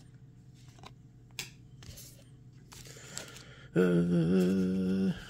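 A few faint clicks of cards being handled, then near the end a man humming one steady low note for about a second and a half.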